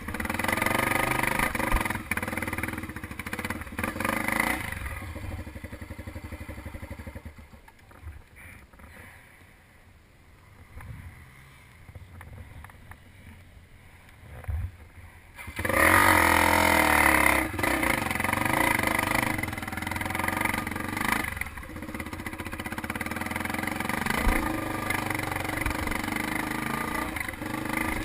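Dirt bike engine running and revving. It falls to a low level for about ten seconds, then comes back loud with a burst of revving about halfway through and settles into steady running.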